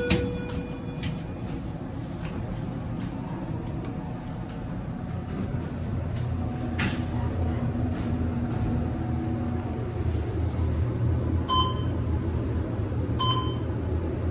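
Hotel elevator: a chime at the start, then the steady low hum of the car in motion, with a couple of clicks and two short electronic beeps near the end.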